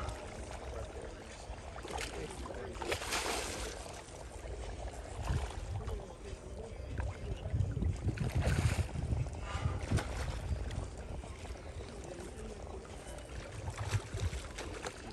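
Water splashing and churning as a hooked fish thrashes at the surface, over a steady low rumble of wind on the microphone. It grows louder and rougher about three seconds in and again around eight to nine seconds.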